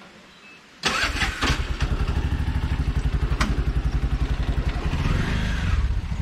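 Auto-rickshaw engine starting about a second in, then running with a rapid, even chugging beat. A single sharp click sounds a little past the middle.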